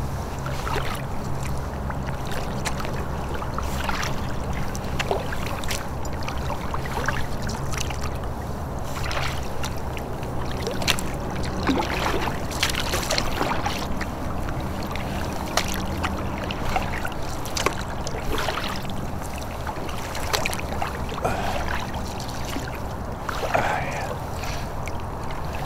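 River water splashing and lapping against a kayak hull as the boat moves, with scattered irregular knocks and ticks over a low steady hum.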